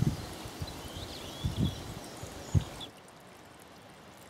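Outdoor garden ambience: an even background hiss with a few low bumps and some short bird chirps. About three seconds in it drops to a quieter, even hiss.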